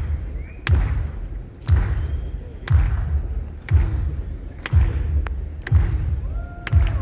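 A deep, heartbeat-like thump about once a second over a concert PA, each beat with a sharp click on top, with faint crowd voices and a whistle between beats.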